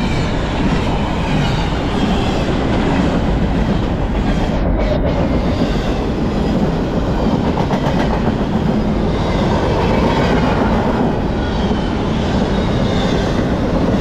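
Double-stack intermodal well cars loaded with containers rolling past at speed, a steady loud noise of steel wheels running on the rails.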